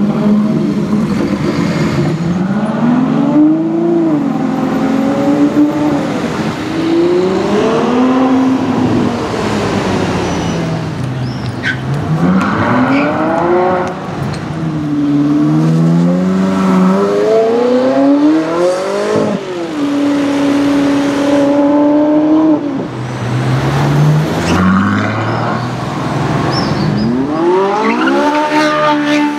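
Ferrari FF's V12 accelerating hard away, its exhaust note climbing and dropping back again and again with the gear changes. Near the end a Ferrari 458 Italia's V8 revs up sharply.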